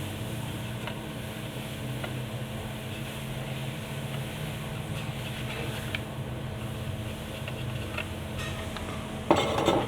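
Soldering iron tinning a laptop motherboard's capacitor pads, with faint crackles and ticks over a steady electrical hum. A brief louder rustle comes near the end.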